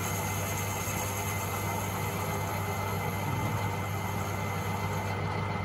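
Myford ML-7 metal lathe running at a steady speed, its electric motor and belt drive giving an even hum as the chuck turns, during a light hand-fed finishing cut on a steel shaft.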